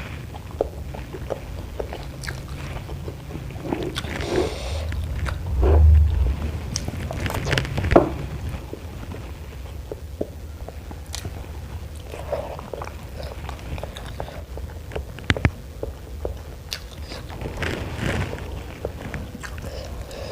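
Close-up eating sounds: siomay and batagor being bitten and chewed, with scattered wet clicks and crunches. There is a low thump about six seconds in and a sharp click about two seconds later.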